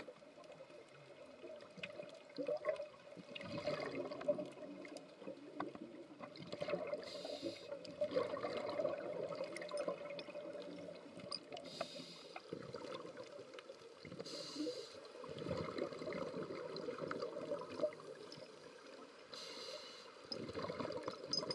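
Scuba diver breathing through a regulator underwater: a short hiss of inhalation every three to five seconds, five in all, with gurgling exhaled bubbles in between.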